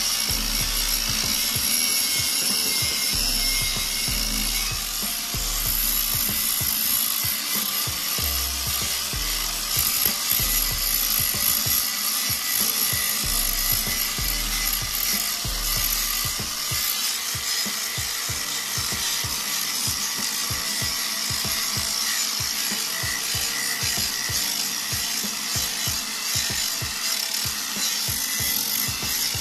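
Angle grinder with a sanding disc running steadily against a chrome-plated aluminium wheel, sanding off the oxidized chrome down toward the bare alloy.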